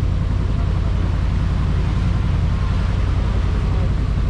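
Tour boat's engine running steadily, a low even drone.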